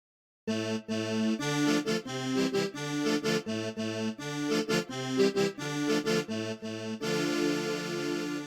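Sampled accordion playing a quick, rhythmic cumbia phrase of short notes, starting about half a second in and closing on a held chord near the end.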